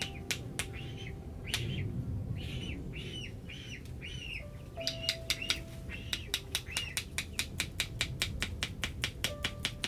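A bird chirping over and over, a short arched call about twice a second. From about halfway, a rapid run of sharp taps or clicks comes in, roughly four or five a second.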